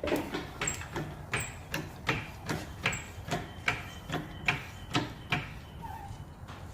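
BendPak two-post car lift's safety locks clicking steadily, about two and a half clacks a second, as the carriages travel. The clicking stops about five and a half seconds in.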